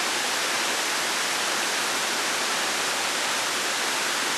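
Steady, even rushing hiss with no breaks or changes, strongest in the upper range.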